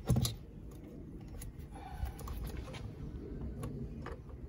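Battery terminal clamp being refitted to a car battery post by hand: a knock at the start, then light metallic clicks and small rattles as it is worked into place.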